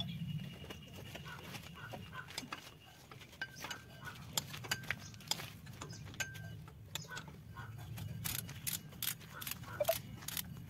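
Ratchet wrench clicking in short runs of quick ticks as a socket on an extension turns a track roller's centre bolt; the ticks start about a third of the way in and come fastest near the end.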